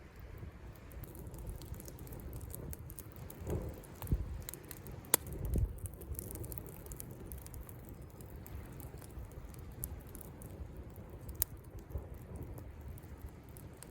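Wood campfire crackling, with scattered small pops and a few louder snaps about four, five and eleven seconds in. Faint sea waves make a low steady rumble underneath.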